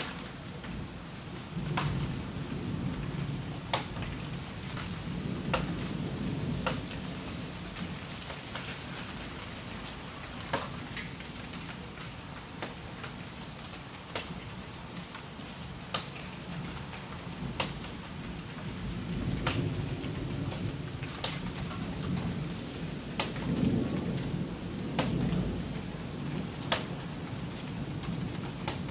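Thunderstorm at night: steady rain with sharp drops ticking close by, and low rolling thunder rumbling twice, for several seconds near the start and again from about two-thirds through.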